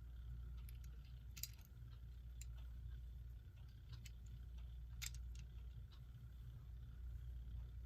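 Scattered light clicks and taps of small plastic clock-movement parts being handled and fitted together, over a steady low hum.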